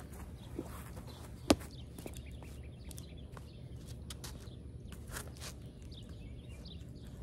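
Footsteps on asphalt pavement, faint and scattered, with one sharp knock about one and a half seconds in.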